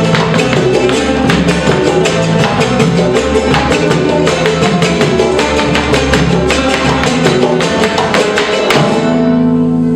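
Son jarocho ensemble of jaranas, requinto and bass playing fast strummed music. About nine seconds in, the strumming stops and the band holds a final ringing chord.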